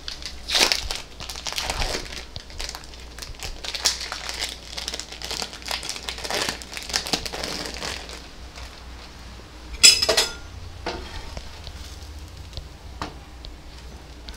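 Plastic wrapping of a packet of cheese slices crinkling as it is handled and opened, then one sharp clatter of a kitchen utensil about ten seconds in, followed by a few light ticks.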